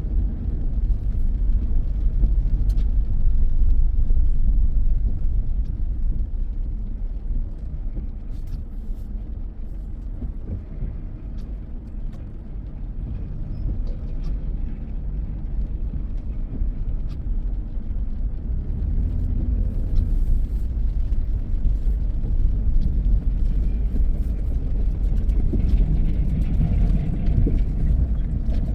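Vehicle driving along a logging road: a steady low rumble of engine and road noise, with a few faint clicks.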